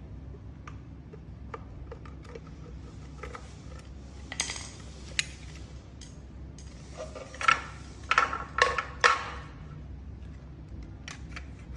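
Clicks, taps and rattles of a screwdriver, plastic parts and wire connectors being handled as an e-bike's controller and wiring are pulled from its battery compartment. Scattered light clicks come first, then a run of louder clatters in the second half, over a steady low hum.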